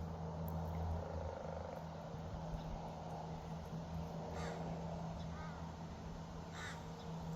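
A crow cawing twice, a couple of seconds apart, over a steady low hum.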